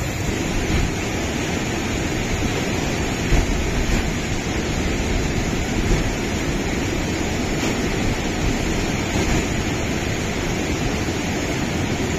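Fast mountain river rapids rushing, a steady, even wash of white-water noise.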